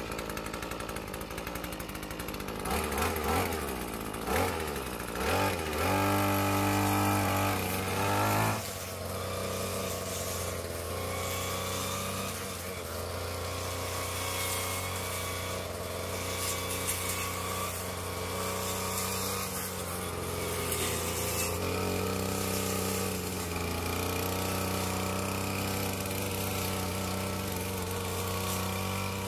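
Petrol brush cutter engine surging in uneven revs, held high for a couple of seconds, then dropping about eight seconds in to a steadier, lower-pitched run that carries on.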